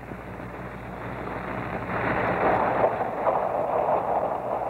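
Yard switch engine approaching along the track, a rumbling, rattling noise that grows steadily louder as it nears.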